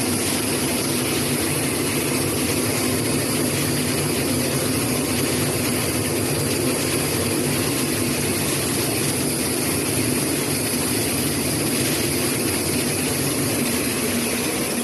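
Flour milling machinery running steadily: a dense, unchanging mechanical hum and rush of noise.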